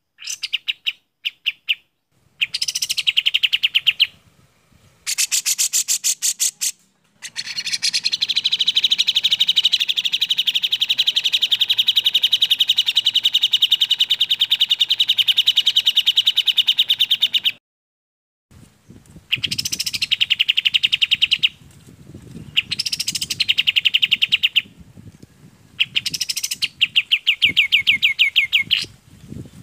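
Sooty-headed bulbul and grey-cheeked bulbul song: fast, rattling trilled phrases, one unbroken trill of about ten seconds in the middle, with shorter trills separated by brief pauses before and after it.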